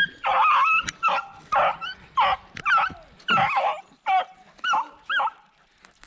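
Beagle baying while working a rabbit's scent trail: about nine loud barks, roughly two a second, each rising and falling in pitch, which stop a little past five seconds in.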